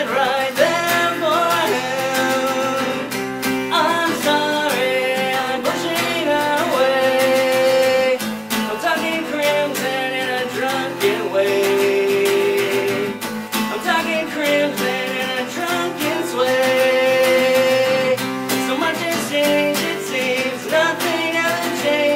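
Steel-string acoustic guitar strummed steadily while a man sings over it, holding some long notes.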